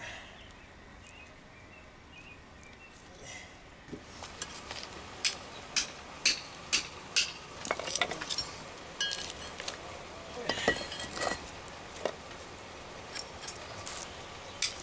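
Hammer knocking on man-made concrete step stones, chipping old glue off them: a string of sharp, clinking strikes at uneven intervals, starting about four seconds in.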